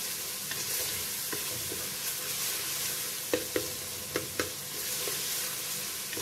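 Onion-tomato masala sizzling in oil in an aluminium pressure cooker as a wooden spatula stirs and scrapes it, the bhuna stage of frying the spices. A few sharp knocks of the spatula against the pot come a little past the middle.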